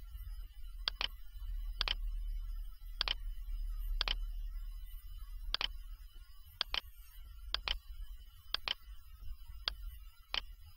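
Computer mouse clicking about ten times at uneven intervals, some as quick double clicks, while items are picked from a list. A low steady hum sits underneath.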